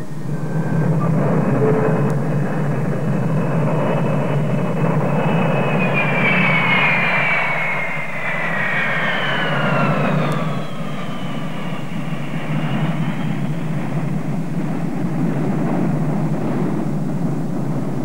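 Jet engines of a Boeing 727 airliner running as it rolls along the runway after landing: a steady loud rush, with a high whine that glides down in pitch from about six to eleven seconds in.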